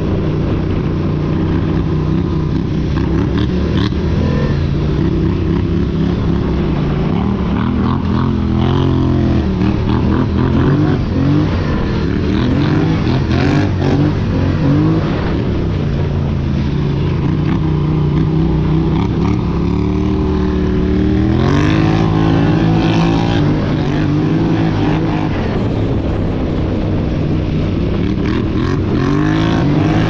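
Polaris Scrambler XP 1000 S ATV's twin-cylinder engine running under way on a trail, its pitch rising and falling with the throttle. It revs up sharply about a third of the way through and again about two-thirds of the way through.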